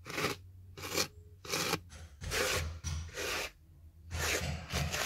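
Stiff hand brush swept in short strokes over car carpet, brushing out dog hair: about seven scratchy strokes, one after another.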